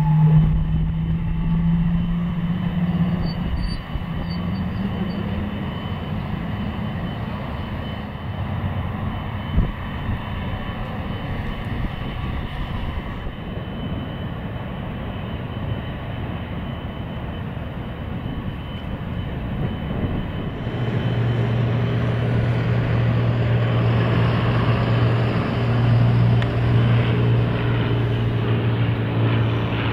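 Boeing 777-300ER's GE90 turbofans running at taxi power: a steady jet-engine drone with a low hum. About 21 seconds in, a deeper steady tone comes in and the sound grows louder.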